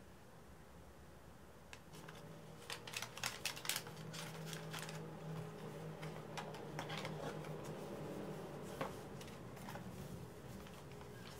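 Paper tea sachets and a cardboard tea box being handled on a table: a cluster of crisp rustles and clicks a few seconds in, then scattered taps, over a faint low hum.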